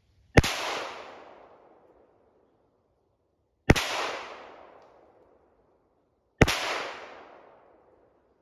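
Three pistol shots from a Kel-Tec PMR-30 .22 Magnum, about three seconds apart, each trailing off in an echo of about a second and a half.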